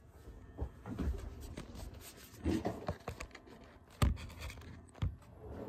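Handling noise on a phone's microphone: fingers rubbing and scratching against the phone as it is moved and held, with a few sharp knocks, the loudest about four seconds in.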